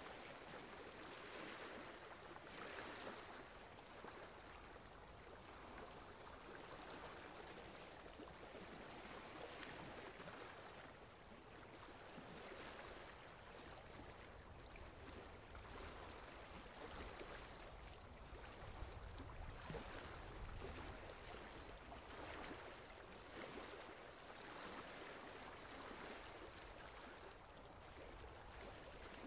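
Faint sea surf: a soft hiss of waves washing on the shore, swelling and easing every few seconds.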